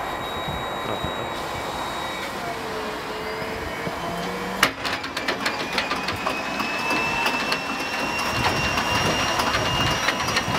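Right-hand Shvetsov ASh-82T radial engine of an Ilyushin Il-14T being started for the first time: a starter whine at first, then a sharp click about four and a half seconds in as the propeller begins to turn, followed by a slowly rising whine and a growing run of irregular clicks and pops as the engine is cranked and begins to fire.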